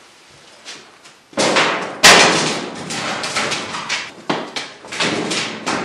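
Sheet-metal electric air handler cabinet set down onto a sheet-metal return-air plenum box: a loud metal thud about two seconds in, then a run of scraping and knocking as the cabinet is shifted into place on the box.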